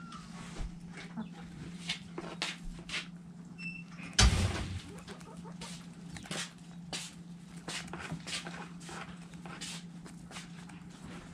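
Chickens pecking and scratching at feed in a coop: a run of short, sharp taps, with one louder thump about four seconds in and a brief chirp or two. A steady low hum runs underneath.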